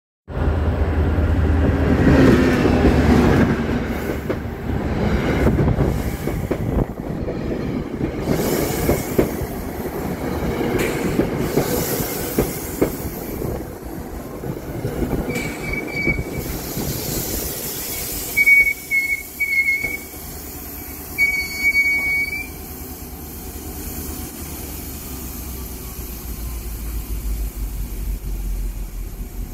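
NJ Transit Comet V commuter train pulling into a station: heavy rumble and clacking wheels at first, then high squealing as it slows, with several short steady high tones about halfway through. A low steady hum as it stands at the platform near the end.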